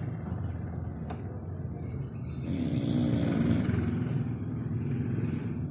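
A dog snoring in a way that sounds like a person snoring: a low fluttering rumble, with one long, louder pitched snore in the middle.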